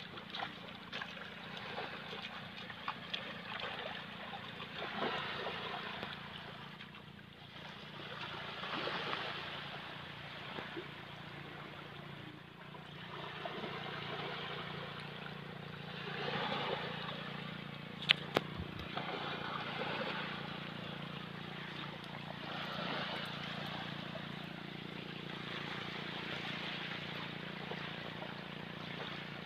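A steady low motor hum under a rushing noise that swells and fades every few seconds, with one sharp click about eighteen seconds in.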